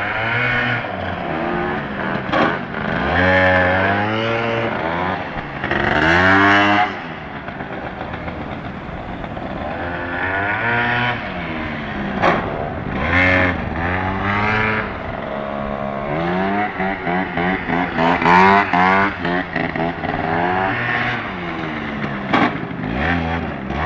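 Gilera Runner scooter's two-stroke engine with a 172 cc big-bore kit, revved hard and let off again and again through wheelies. The pitch climbs and falls with each burst of throttle, with quick blips of the throttle in the later part.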